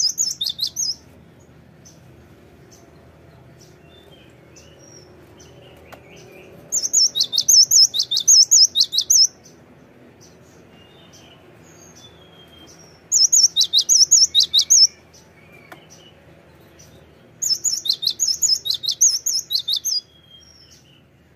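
A cinereous tit (gelatik batu) singing. It gives runs of about ten quickly repeated high, ringing notes, each run lasting two to three seconds, four times with pauses of a few seconds between, the first run ending about a second in. Faint short chirps fall in the pauses.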